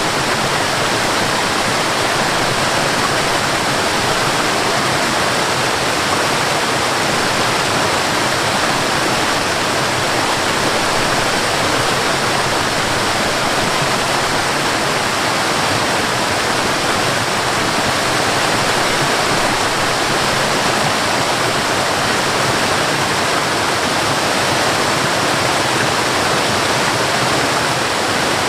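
Waterfall: water falling and rushing in a steady, unbroken roar, loud and even throughout.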